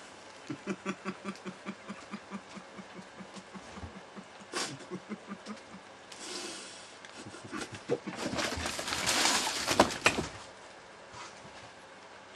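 Aerosol can of whipped cream spraying: a short hiss about six seconds in, then a longer, louder sputtering spray with crackles from about eight to ten seconds. Before that comes a rhythmic run of short low-pitched sounds, about five a second, fading over several seconds.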